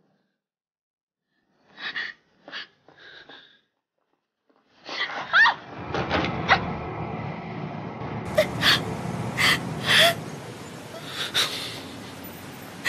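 A woman's short, sharp gasps: three quick ones after a silence, then more from about five seconds in, over a steady low street hum.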